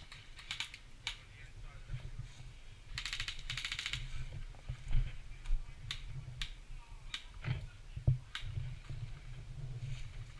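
Airsoft guns firing: a short burst of rapid automatic fire about three seconds in, then scattered single shots, over a low rumble.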